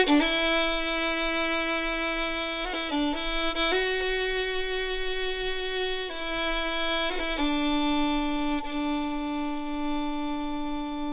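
Music: a solo violin playing a slow melody of long held notes. It changes pitch only a few times and closes on a long low note.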